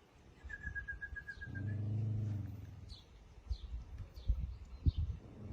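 A frightened dog gives a low growl lasting about a second. Small birds chirp around it, a high steady trill sounds just before the growl, and a few dull knocks come near the end.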